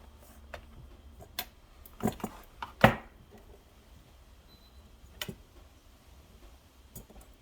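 Scattered clicks and knocks of small hard objects being handled: a quick cluster about two seconds in, the loudest knock about three seconds in, then single lighter clicks later on.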